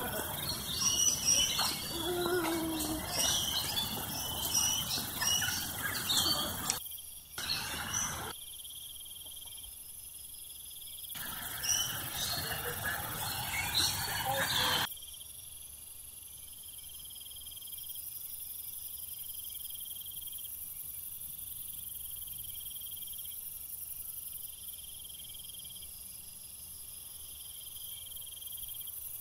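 Birds chirping and calling over a noisy background, then about halfway the sound changes suddenly to a steady, high-pitched chirring of insects.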